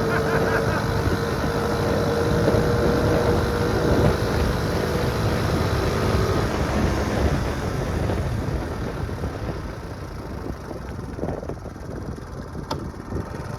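Honda C70 step-through's single-cylinder four-stroke engine running at a steady note while riding, with wind on the microphone. The engine note drops away about halfway through and the sound gets quieter as the bike slows.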